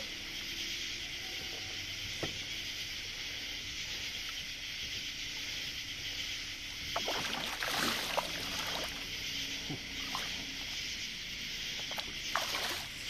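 Steady high-pitched chorus of night insects on a summer lakeshore, with a few faint clicks and knocks scattered through it.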